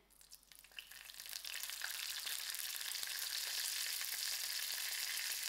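Fresh curry leaves frying in hot oil in a pan with dried chillies: a hiss with small crackles that builds over the first two seconds, then holds steady.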